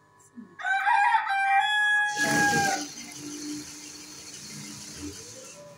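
A rooster crows once, about half a second in, in a segmented call lasting about two seconds. It is followed by the steady whirring hiss of an industrial sewing machine running, which stops near the end.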